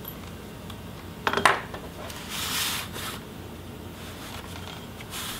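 Handling of a laptop display assembly on a work table: a couple of sharp clicks about a second and a half in, then a short sliding rub as the assembly is pushed across the table surface.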